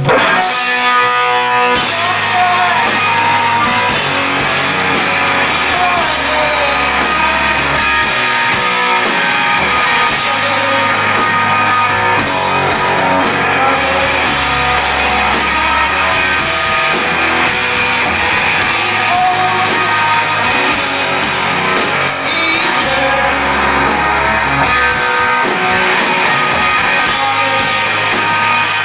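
Live rock band playing loudly: electric guitar, long low bass notes and drums, with a woman singing over them. The low bass comes in about two seconds in.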